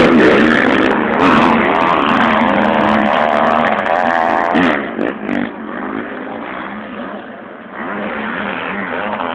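Motocross bikes racing along the track, their engines revving up and down with changing pitch as they pass. Loud for the first five seconds or so, then fainter.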